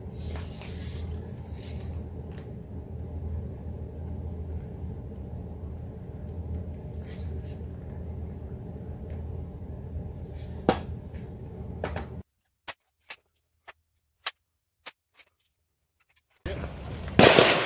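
Steady low hum with a few light clicks as the Daisy VL spring-piston rifle is handled. Then, against dead silence, about five sharp separate ticks roughly half a second apart as low-velocity air-gun pellets, at about 130 feet per second, strike a paper target on a cardboard box. A loud burst of sound starts near the end.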